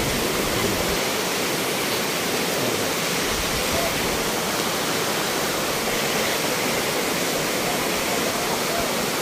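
Steady rush of a swollen mountain river running over rocks in rapids.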